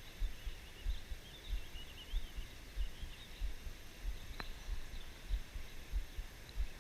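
Small birds chirping in the background over a run of irregular low, dull thumps on the microphone, with a single sharp click about four seconds in.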